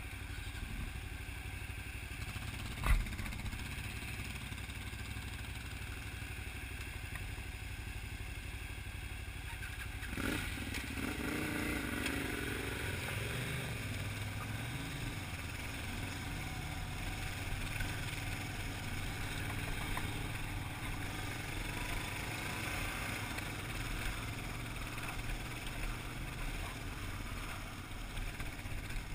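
Kawasaki KLR dual-sport motorcycle running at low speed on a rocky trail, its engine note rumbling steadily. A single sharp knock comes about three seconds in, and the engine picks up slightly from about ten seconds in.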